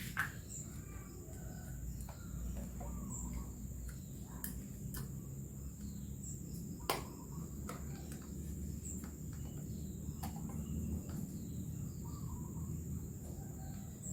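A steady high-pitched insect drone, like crickets, over a low background rumble, with a few sharp clicks, the loudest about seven seconds in.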